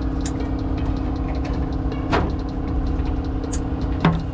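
Steady machine hum with a low rumble, like an engine idling, under light clicks and rustles of wiring connectors being handled and pushed into place. A sharper click near the end.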